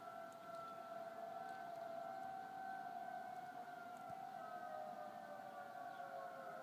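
Outdoor civil-defense warning siren sounding for a scheduled test. It holds a steady two-tone wail, then its pitch starts to slide down about five seconds in.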